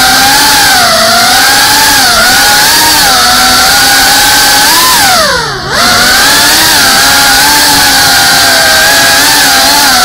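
FPV drone's brushless motors and propellers whining loudly, the pitch wavering constantly with the throttle. About five seconds in, the pitch falls steeply and the sound dips as the throttle is chopped, then it climbs straight back up.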